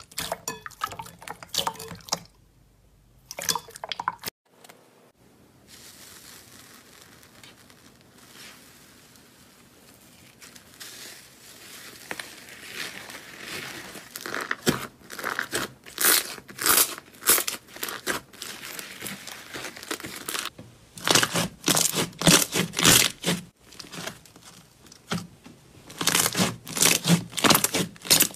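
Slime being squeezed and pressed by hand, making crackling, popping clicks. Quieter for several seconds near the start, then the crackling grows dense and loud through the second half.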